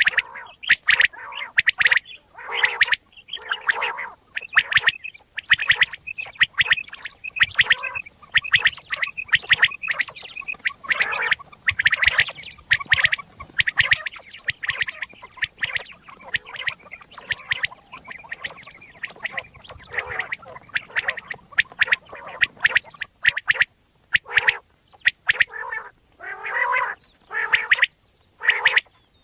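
Common quail calling: quick runs of short, sharp notes with some raspier stretches, breaking into separate bursts with short gaps near the end.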